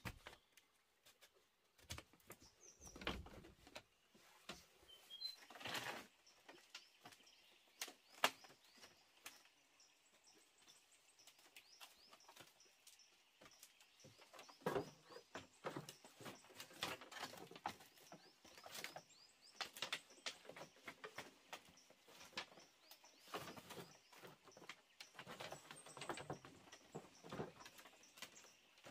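Faint, irregular clicks and light knocks, some in quick clusters, with faint bird chirps.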